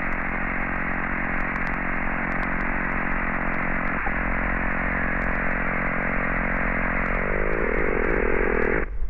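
Single-engine light aircraft's engine and propeller droning steadily in flight. About seven seconds in, the engine note sinks as the engine loses power and winds down, then the sound drops away sharply just before the end: the engine failing, "it all goes quiet up front".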